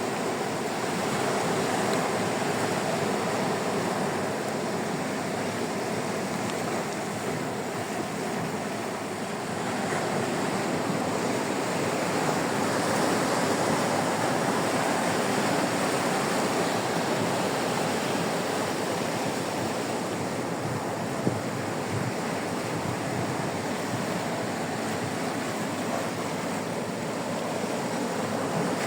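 Sea waves washing onto a sandy beach: a steady surf rush that slowly swells and ebbs in loudness.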